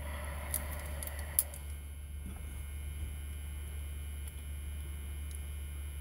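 Metal scraping and clicking as needle-nose pliers grip and work at a seized detent pin in a deadbolt lock cylinder. The scraping lasts about a second and a half at the start, with a sharp click near its end, then only a few faint clicks over a steady low hum.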